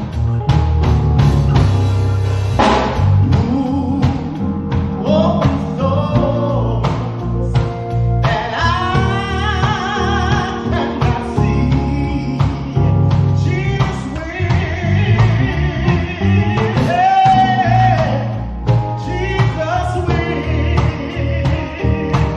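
Gospel song from a church choir and praise band: voices singing over drums, bass and guitar.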